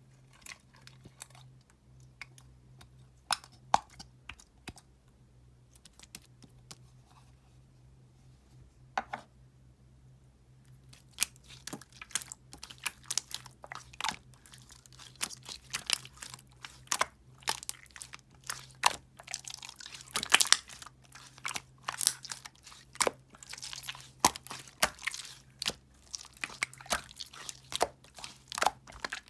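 Soothing gel being squeezed and worked close to the microphone, making crackling, crunching clicks. They are scattered for the first ten seconds, then come thick and fast, over a faint steady hum.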